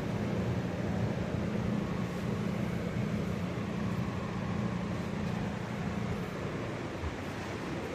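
Steady low hum inside a new Staten Island Railway subway car, standing at a station between announcements: the car's running equipment and ventilation droning evenly, easing off slightly near the end.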